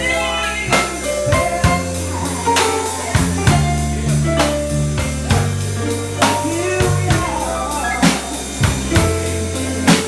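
Live band music: a drum kit keeps a steady, even beat under a bass line, with bending melodic lines over it.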